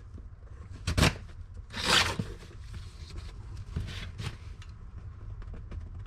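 Utility knife slicing through packing tape on a cardboard box, a ripping, scraping sound. A sharp knock comes about a second in, the loudest rip just before two seconds, then smaller scrapes and rustles of the box.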